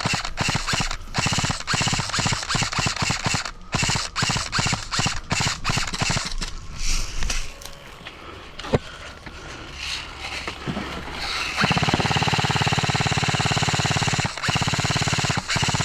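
Airsoft guns firing: a run of sharp irregular shots for the first several seconds, one lone snap a little later, then a long full-auto burst of about four seconds near the end.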